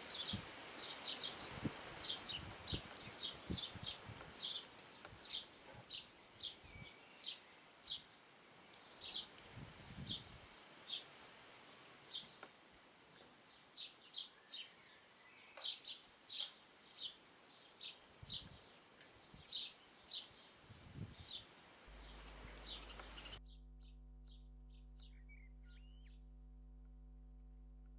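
Short, high chirps from great tits inside a nest box, about one or two a second, with soft low thumps of a bird shifting in the nest. About 23 seconds in, the sound changes abruptly to a steady electrical hum with a few faint squeaks.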